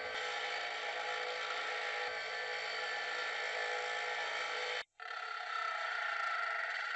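Grinder running with a steel wrench held against it, grinding the beveled end flat so the wrench grips the whole bolt head. The sound cuts off abruptly about five seconds in and starts again a moment later.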